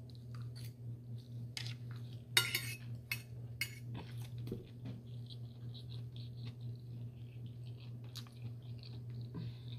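Cutlery clinking and scraping against a plate, a few sharp clicks with the loudest cluster about two and a half seconds in, over a steady low hum.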